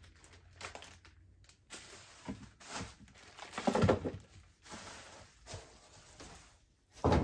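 Bubble wrap and plastic packaging crinkling and rustling as items are unwrapped and handled, with a few soft knocks as they are set down; the loudest handling comes about four seconds in and again near the end.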